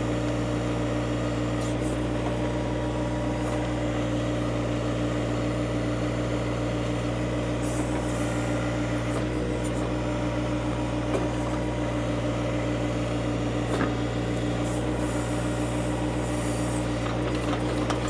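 John Deere 1025R compact tractor's three-cylinder diesel running steadily at a constant pitch while working the backhoe's hydraulics to dig out a tree root, with a few faint knocks.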